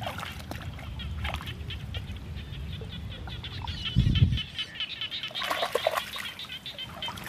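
Shallow water sloshing and splashing as a person wades and pulls plants up out of the water, with a heavier splash about four seconds in and more splashing soon after. Small birds chirp in the background.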